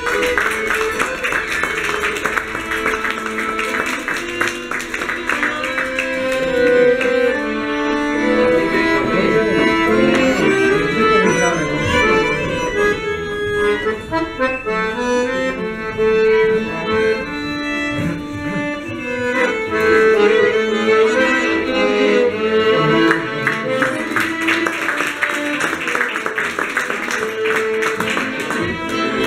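Piano accordion played live, a melody over sustained lower notes.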